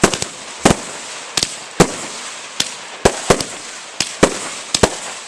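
Aerial fireworks bursting: about a dozen sharp bangs at irregular intervals, with a steady hiss between them.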